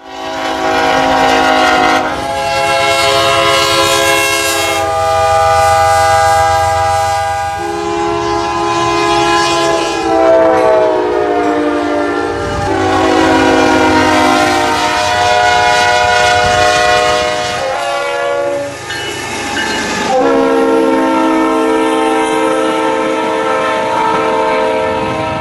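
Diesel locomotive multi-chime air horns blowing, a string of separate horn blasts one after another, each a chord held for one to five seconds. A couple of them fall in pitch as the train goes by, over a low train rumble.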